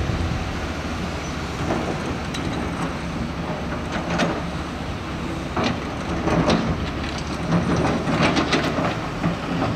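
Heavy diesel earthmoving machinery running steadily, with irregular metallic clanks and knocks that come more often in the second half.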